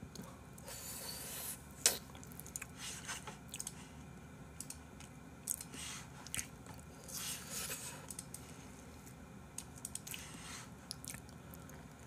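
Quiet mouth sounds from a person with something pink held at his lips: soft chewing and sucking noises, a few short breathy hisses, and scattered small clicks, the loudest about two seconds in.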